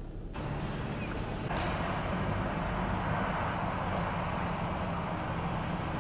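Steady car cabin noise: a low engine hum under a rushing hiss that grows louder about a second and a half in.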